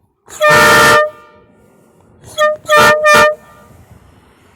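Homemade half-scale model three-chime train air horn being honked. It gives one long blast of under a second, then a quick toot and two short blasts about a second and a half later, each a steady chord of several tones.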